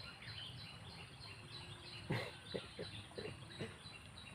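Outdoor ambience with a steady, rhythmic high-pitched chirping from a small animal, repeating about three to four times a second, with a few faint short sounds around the middle.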